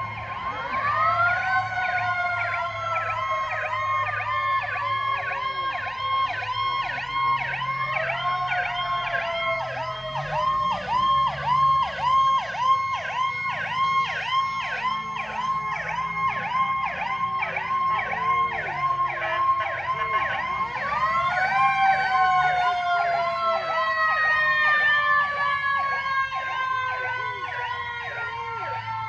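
Several emergency sirens from a fire truck and police cars sounding at once: a rapid warbling siren overlapped by a siren that sweeps up quickly and then slowly falls in pitch, three times, about a second in, about eight seconds in and about twenty-one seconds in.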